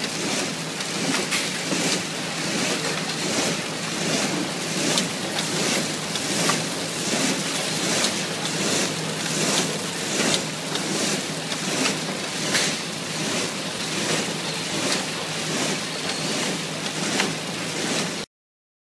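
Packaging-line machinery running: a steady noisy din with a regular sharp knock about one and a half times a second. It cuts off abruptly near the end.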